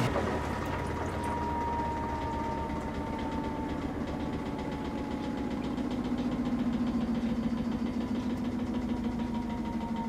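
Maytag Bravos XL washing machine draining: its drain pump running with a steady hum, pumping water out through the drain hose into a sink.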